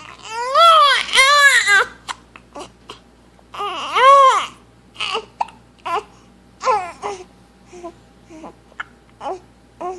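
A seven-week-old baby crying with hiccups: three high-pitched wails in the first half, then short hiccupping yelps about twice a second.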